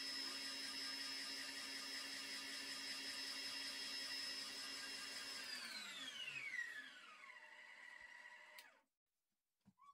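Electric stand mixer whipping egg whites into meringue: a steady motor whine that drops in pitch as the speed is turned down about five and a half seconds in, then cuts off near the end.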